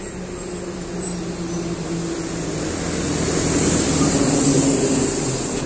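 A bus engine running as the bus comes up close along the road, growing louder and peaking about four seconds in with a rising hiss before easing off.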